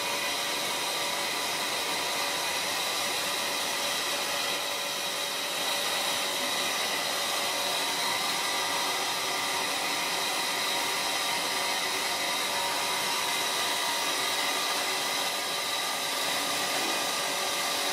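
A steady, even rushing hiss with faint steady tones in it, holding at one loud level.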